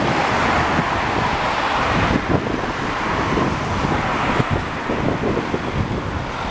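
Road traffic passing close by, the tyre and engine noise of cars swelling and fading twice, over wind buffeting the microphone.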